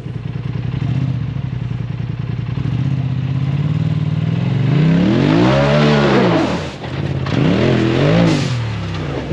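Side-by-side UTV engine running at a steady idle, then revved up and back down twice: a longer rev about five seconds in and a shorter one near the end.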